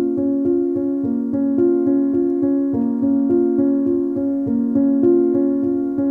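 Background music: a keyboard playing a steady pulse of repeated chords, about three notes a second, changing chord every second or so.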